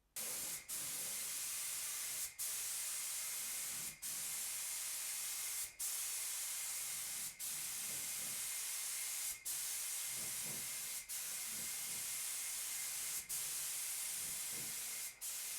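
HVLP spray gun spraying paint with a steady high hiss of air, broken by short pauses about every two seconds.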